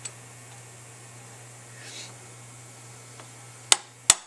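Two sharp hammer taps near the end on a 9/16 socket used as a driver, pressing a valve into the fuel casting of an AC dual-action mechanical fuel pump held in a vise. Before them, a small click and faint handling as the valve and socket are set in place.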